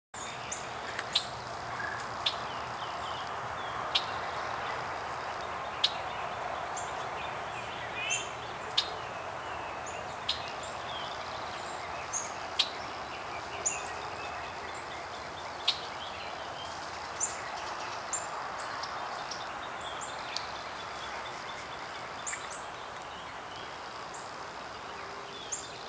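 Spring songbird chorus: many short sharp chirps and quick rising whistled notes from several birds, scattered every second or two over a steady background hiss.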